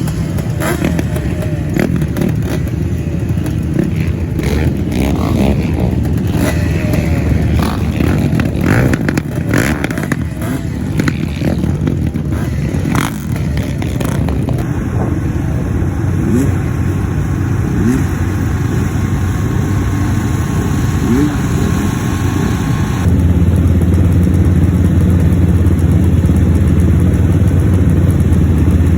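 Ice-racing engines running and revving as race vehicles lap the track, with scattered knocks and clatter in the first half. The sound changes abruptly twice, about halfway through and again about three quarters of the way through.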